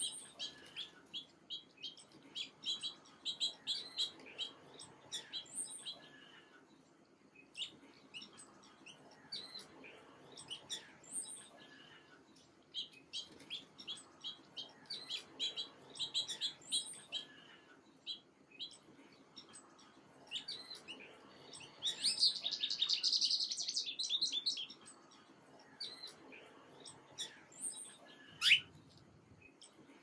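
Small songbirds chirping: a steady scatter of short, high chirps, with a fast, louder run of notes about two-thirds of the way through and one sharp, loud note near the end.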